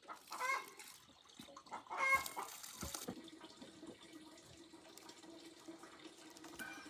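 Chickens clucking: a few short calls about half a second and two seconds in, over a faint steady background.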